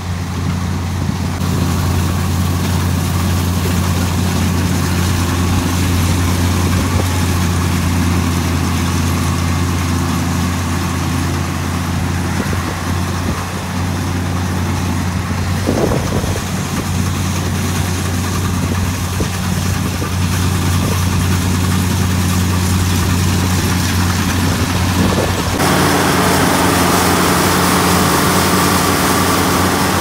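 International Axial-Flow combine harvesting wheat: a steady low engine drone with the hum of its threshing machinery. About four seconds before the end the sound jumps louder and brighter as the combine is heard close up.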